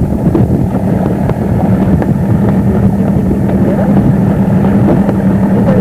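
Motorboat engine running steadily with a constant low hum, with wind buffeting the microphone.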